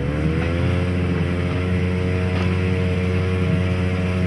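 Engine of a Pionerka narrow-gauge railway draisine running as it rolls slowly along the track. Its note climbs back up in the first half-second, then holds steady.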